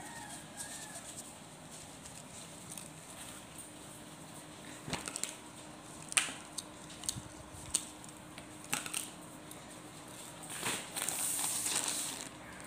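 Cotton clothes rustling as they are handled and spread on a hard floor, with a few sharp light clicks and taps in the middle. Near the end a plastic courier mailer bag crinkles under a hand.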